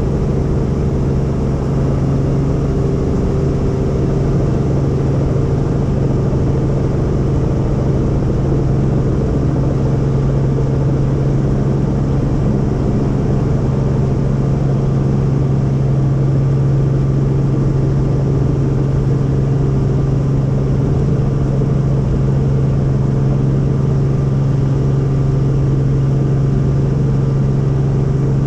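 Helicopter in flight: a steady, loud drone of engine and rotors with a strong low hum.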